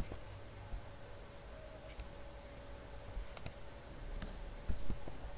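A handful of sparse, sharp computer mouse clicks, about five spread over the few seconds, over a faint steady hum.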